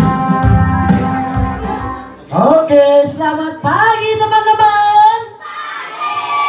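Keyboard backing music with a steady beat, cutting off about two seconds in. Then a voice over the loudspeakers sings long, drawn-out phrases.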